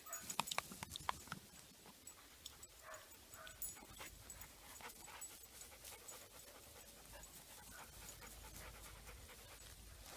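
Faint dog panting, with a few sharp clicks and knocks in the first second or so.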